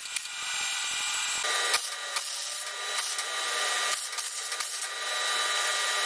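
A tool working on steel with a steady, hissing, rasping sound. It begins with scattered ticks and crackles and settles into a continuous rasp about a second and a half in.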